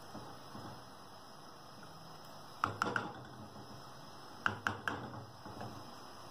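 Wooden spatula knocking against an earthenware curry pot: three quick taps about two and a half seconds in, then three more about a second and a half later, over low steady background noise.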